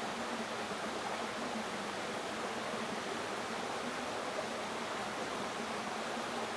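Steady rushing of stream water, an even noise with no birdsong or calls.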